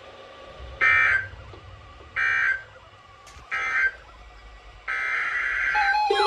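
Emergency Alert System data bursts on a weather-radio broadcast. First come three short, buzzy bursts about a second and a half apart: the end-of-message code closing the warning. About five seconds in a longer burst of the same buzz begins, the opening of the next alert's coded header.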